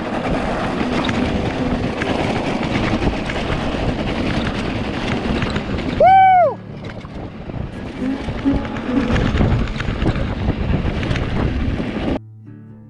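Tyres of a loaded bikepacking bike rolling fast down a steep loose-gravel track, with wind buffeting the microphone. About six seconds in comes a short, loud, high-pitched cry that rises and falls. The noise cuts off suddenly near the end, leaving quiet guitar music.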